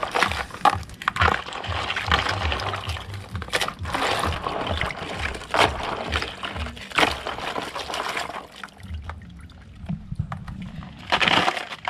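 Water sloshing and splashing in a plastic basin as hands rinse live crabs, with scattered sharp clicks from the handling.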